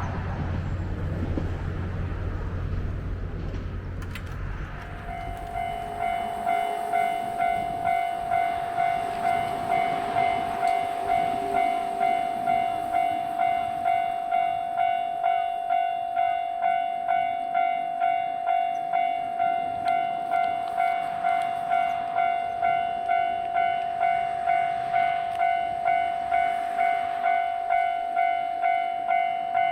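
Japanese level-crossing alarm starts about five seconds in and rings steadily in evenly spaced clangs, warning that a train is approaching. Before it, a low rumble.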